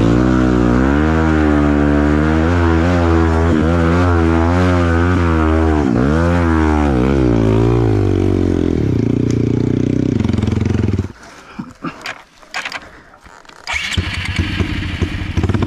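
Honda CRF dirt bike's single-cylinder four-stroke engine revving, its pitch rising and falling repeatedly with the throttle, then cutting off abruptly about eleven seconds in. A few scattered knocks and then a hiss follow near the end.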